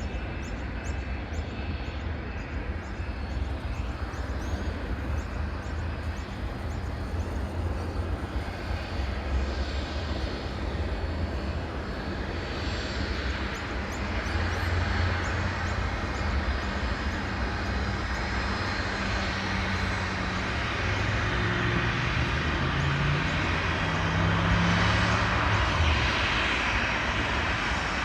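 Jet airliner engines rumbling as the plane flies past, getting steadily louder, with low tones that shift in pitch near the end.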